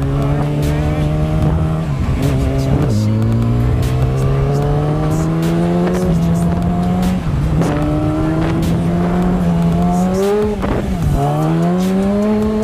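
Motorcycle engine running under way, its pitch climbing steadily and then dropping at each upshift, several times over, picked up by a microphone under the rider's helmet chin pad.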